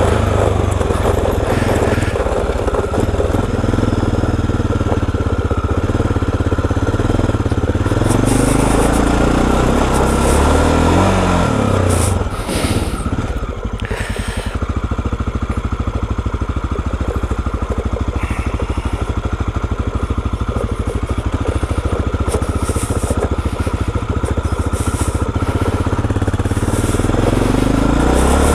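Aprilia Pegaso 650 single-cylinder motorcycle engine under way, its pitch rising and falling with the throttle and gear changes. The revs drop briefly about halfway through, then build again near the end, over a steady rush of wind noise.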